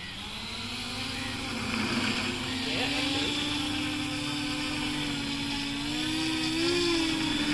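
Two electric motors of a small 3D-printed RC bi-copter spinning its propellers up, a steady buzzing whine that climbs slowly in pitch and grows louder, then wavers up and down near the end as the throttle is moved.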